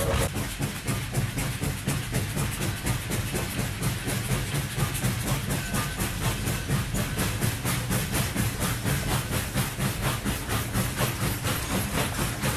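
Steam locomotive chuffing in a steady rhythm of about four beats a second, with hissing steam over a low rumble.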